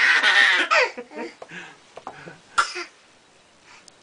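A loud, breathy, cough-like vocal outburst in the first second, followed by a baby's short bursts of laughter.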